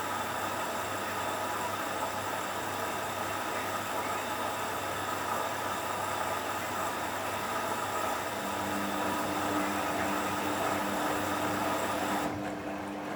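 Hoover washing machine in its rinse cycle: a steady hiss with a machine hum. A lower motor hum comes in about eight seconds in, and the hiss cuts off suddenly near the end.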